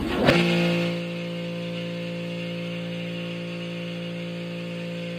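Vapor blasting with a pressure washer: the washer's pump hums steadily while the jet of water and crushed-glass media hisses against an aluminum part. It is louder for the first second, then settles into an even run.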